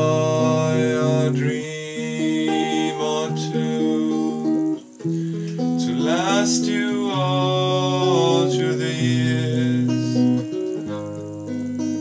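A man singing in long held notes over chords played on a guitar.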